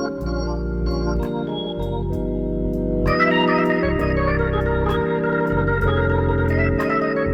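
Hammond organ playing held chords over low bass notes that start and stop, with a brighter, fuller chord coming in about three seconds in.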